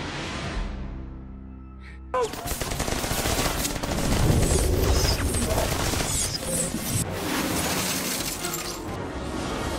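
Film soundtrack: low sustained music, then about two seconds in a sudden loud onset of crashing and shattering debris, with many sharp cracks over continuing music.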